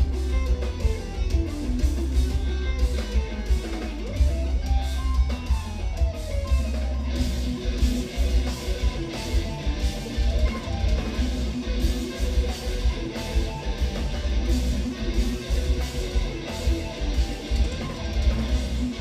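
Instrumental progressive metal played live by a band of eight-string electric guitars and drum kit: fast guitar runs climb and fall in pitch over a heavy low end. About halfway through the playing thickens, with steady drum hits under the guitars.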